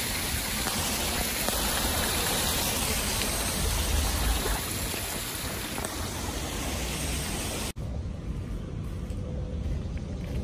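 Water from a small waterfall spattering down a rock face, a steady rain-like hiss of falling drops. About three-quarters of the way through it cuts off abruptly, and a quieter, duller hiss follows.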